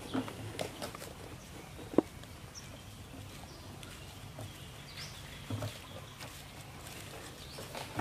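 Outdoor animal sounds: scattered short clicks and rustles over a steady low hum, with a few brief high chirps. One sharp click about two seconds in is the loudest.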